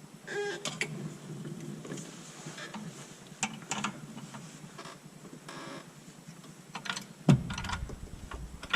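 Scattered metal clunks, clicks and scraping as a T56 manual transmission is worked up into place against the engine, with a sharp knock about seven seconds in.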